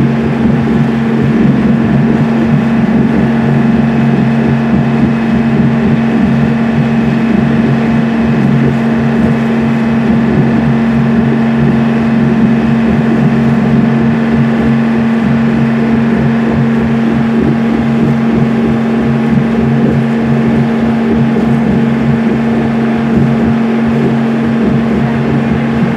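A schooner's engine running steadily under way, a constant low drone with a strong unchanging hum.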